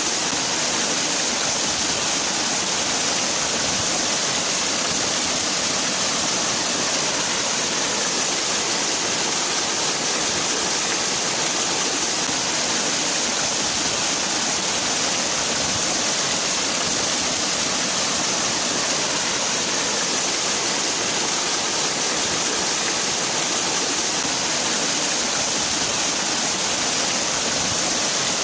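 Waterfall: water falling and splashing in a steady, unbroken rush with a hissy, bright edge.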